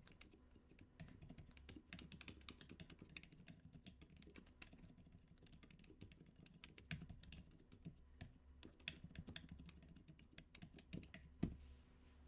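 Typing on a MiniAxe keyboard fitted with Outemu Dopamine switches: a fast, uneven run of soft key clicks, with one sharper, louder keystroke near the end.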